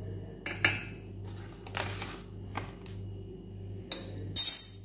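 Metal spoon clinking and scraping against a stainless steel saucepan as spoonfuls of pastry-cream powder are added to milk: a few separate clinks, with the loudest, longer scrape near the end.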